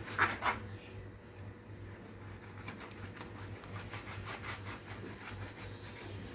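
Kitchen knife sawing through a raw red snapper fillet on a plastic cutting board: a run of short back-and-forth strokes, the blade rubbing and scraping on the board. The strokes are loudest in the first half-second.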